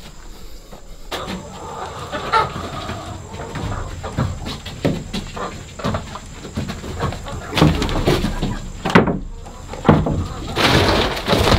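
Chickens clucking, with irregular knocks and footsteps from a feed bag being handled and carried. Near the end comes a steady hiss, which is layer-feed pellets pouring into a hanging feeder.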